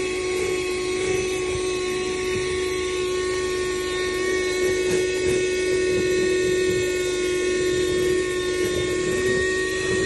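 Handheld car vacuum cleaner with a flexible hose running steadily: a constant motor whine over the rush of sucked air as its nozzle is worked over the car's floor mat.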